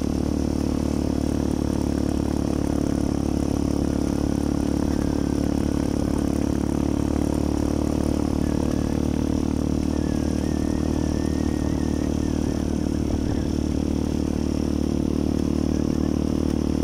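Steady engine drone and road noise of vehicles travelling along at an even speed, with a group of small motorcycles riding close behind.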